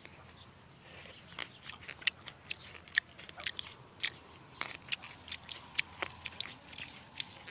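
A person biting and chewing fresh grapes: a run of sharp, irregular crunches and clicks, starting about a second in.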